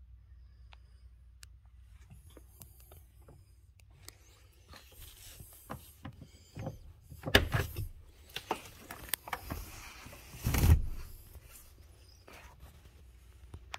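Handling sounds inside a vehicle cabin: clicks, scrapes and rustles as a hand works at a seat beside the door pillar, with two heavy thumps, the first a little past halfway and the louder one about three-quarters of the way through.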